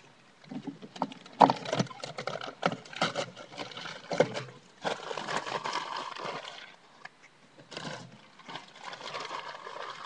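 Irregular rustling and knocks close to the microphone, with several sharp clicks, the loudest about a second and a half in.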